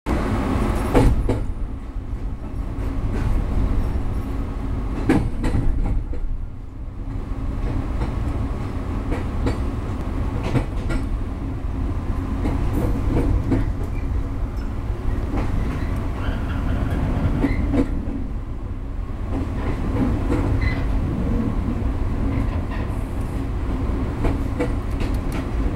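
Electric train heard from inside its cab as it moves slowly into a station: a steady low running rumble, broken now and then by sharp clacks of the wheels over the track.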